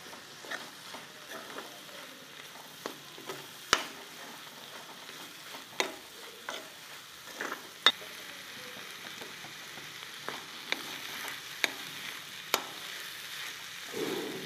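Masala and moringa (drumstick) flowers frying in a kadhai with a steady sizzle, stirred with a metal spoon that clinks and scrapes against the pan every second or two.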